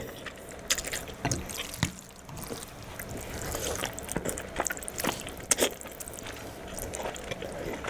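Close-miked eating of saucy black bean noodles (jjajangmyeon): wet slurping and chewing mouth sounds with scattered clicks.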